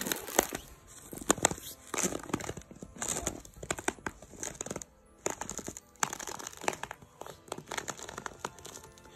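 Footsteps crunching in snow, an uneven step about every half second to a second with a couple of brief pauses.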